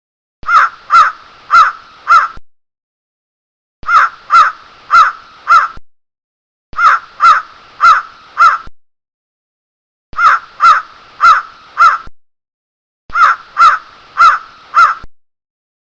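A crow cawing in bouts of four harsh caws about half a second apart, each bout followed by about a second of dead silence, repeated five times.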